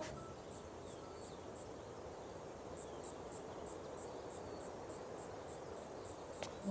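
Crickets chirping: short high chirps about three times a second, sparser at first and steady from about three seconds in, over a faint low hiss.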